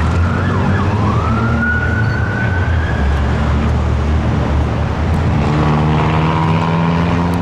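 An emergency-vehicle siren switching from a quick up-and-down yelp to a slow wail that rises, holds, and fades out about three seconds in, over a steady low engine rumble. About five seconds in, a steadier engine drone with a clear pitch comes in.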